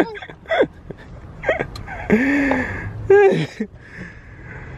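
A person's wordless vocal sounds: several short ones, then a longer drawn-out one about two seconds in and another about three seconds in.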